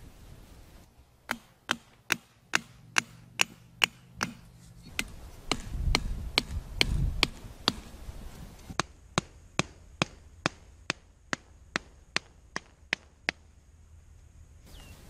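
Hand hammer striking thin stakes, driving them into packed earth to pin down a wire-mesh trap. Sharp, evenly spaced blows about two or three a second, with a low rumble midway.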